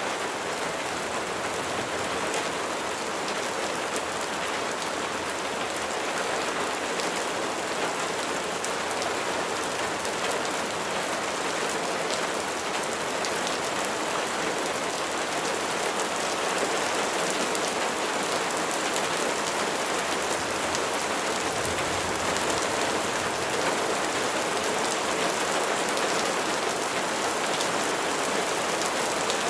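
Steady rain falling, an even hiss with the fine patter of individual drops striking a surface, and a faint low rumble about two-thirds of the way through.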